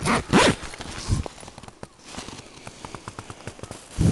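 A tent door zipper being unzipped in a few separate pulls, with faint ticking between the louder strokes.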